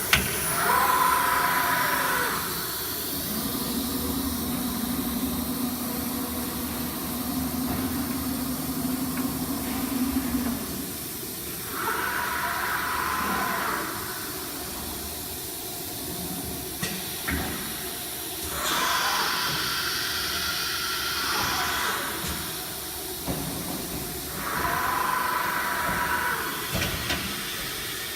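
1325 ATC CNC router running a test cycle: four spells of loud hissing, each with a whine that glides in pitch, about 1, 12, 19 and 25 seconds in, with a steady lower hum between the first two.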